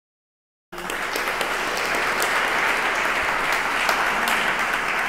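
Audience applauding in welcome, a dense patter of many hands clapping that starts abruptly about a second in.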